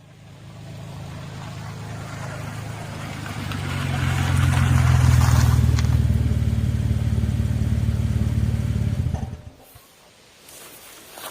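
A motor vehicle's engine running with a steady low rumble that grows louder, then cuts off suddenly about nine seconds in; faint rustling follows.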